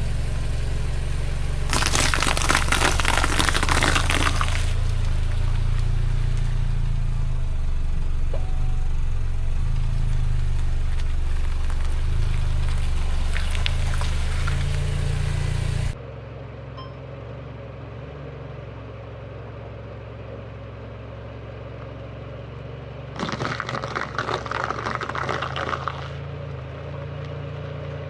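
Car engine running with a low hum while its tyres crush apples: two crackling bursts, each a couple of seconds long, one near the start and one late on. The engine hum drops off abruptly about halfway through.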